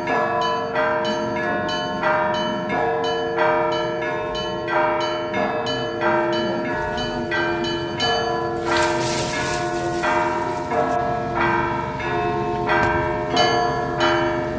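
Russian Orthodox church bells ringing a peal (zvon): smaller bells struck in a quick repeating pattern, about three strokes a second, over the long ring of the larger bells.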